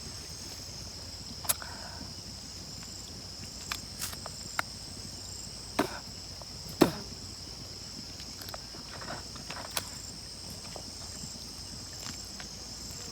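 Steady high-pitched chirring of crickets, with a handful of short sharp clicks and taps scattered through it.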